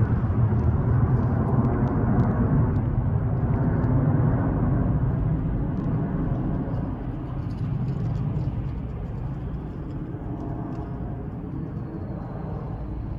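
Jet engines of a twin-engine Airbus widebody airliner climbing out after takeoff, a deep steady rumble that slowly fades through the second half as the aircraft moves away.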